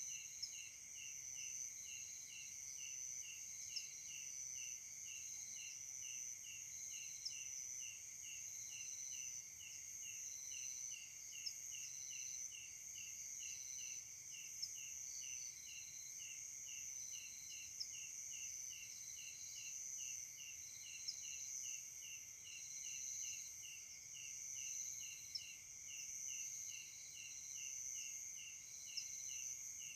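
Night insect chorus of crickets and other insects: a steady high trill layered with a chirping pulse about twice a second and a slower repeated buzz. A sharp tick comes every three or four seconds.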